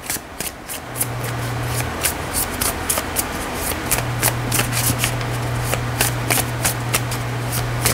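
A tarot deck being shuffled by hand: a rapid, continuous run of card clicks and riffles.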